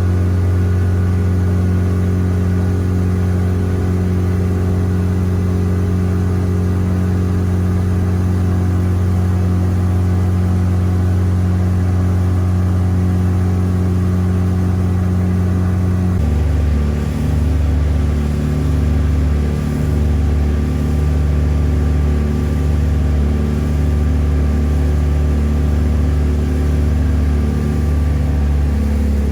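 Tour boat's engine running steadily under way, a low droning hum. About sixteen seconds in its note shifts abruptly to a slightly different pitch, as the engine speed changes.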